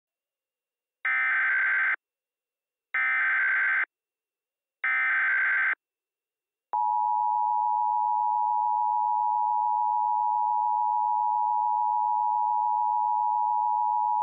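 Emergency Alert System signal: three one-second bursts of SAME header data, about a second apart, then the steady two-tone EAS attention signal, which starts about seven seconds in and holds for about eight seconds.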